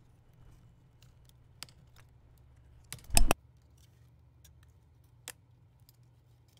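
Scattered light plastic clicks as a guitar pick is worked around a Samsung A32's frame, popping the clips that hold it, with one much louder knock about three seconds in.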